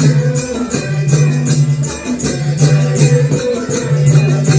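Music with a steady beat over a repeating bass note.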